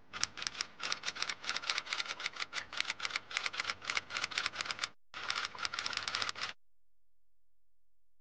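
Cloth towel scrubbing the inside of a stainless steel espresso portafilter basket to dry it, in quick rasping strokes about five a second. The rubbing pauses briefly about five seconds in, resumes for a second and a half, then stops.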